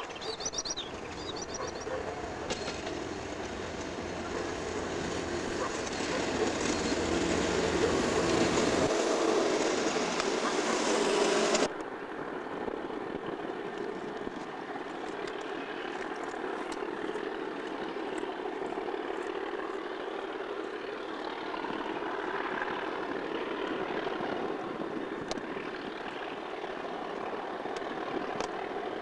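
Class 56 diesel locomotive with its Ruston-Paxman V16 engine running light past at close range, growing louder before cutting off abruptly about twelve seconds in. Then a Class 37 diesel locomotive with its English Electric engine approaches with a train of TTA tank wagons, giving a steady, quieter engine drone.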